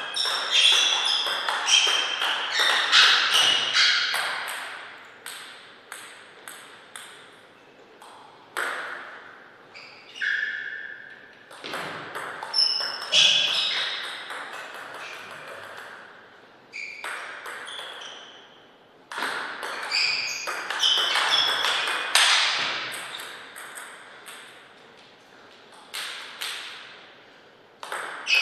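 Table tennis ball being hit back and forth in several short rallies. Each racket hit and table bounce is a sharp click with a short ringing ping, with pauses of a few seconds between points.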